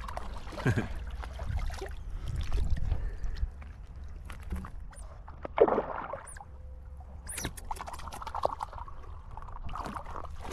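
Water splashing and sloshing right at the microphone as a person swims, with a steady low rumble of moving water underneath. There are irregular splashes, the loudest a little past halfway.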